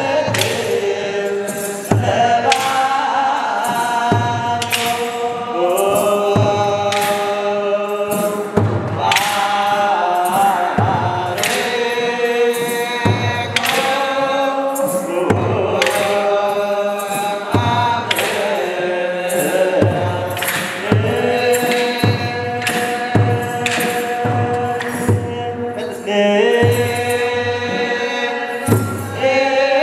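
Orthodox Tewahedo mahlet chant: a group of male voices sings together, and a kebero hand drum beats about once a second.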